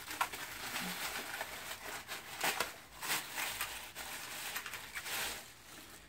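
Plastic packaging wrap crinkling and rustling as it is handled and pulled off, with irregular louder crackles.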